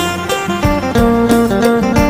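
Isan phin, the northeastern Thai plucked lute, playing a lively folk melody over a steady beat of about three pulses a second.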